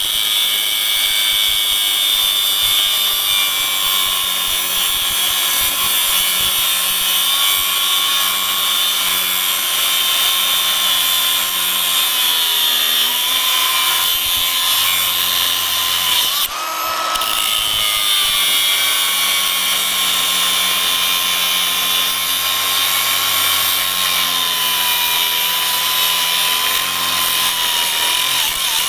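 Milwaukee cordless angle grinder cutting through a 12 mm Kryptonite New York hardened steel security chain: a steady, loud grinding whine whose pitch sags under load. A little over halfway through it briefly eases off, the pitch jumping up as the disc frees, then it bites into the chain again.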